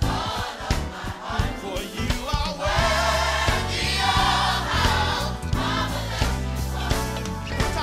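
Gospel choir singing with instrumental accompaniment, voices wavering with vibrato over held bass notes.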